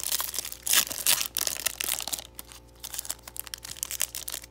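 Foil wrapper of a Pokémon booster pack crinkling as it is handled and torn open by hand, in irregular crackles that are loudest about a second in and softer afterwards.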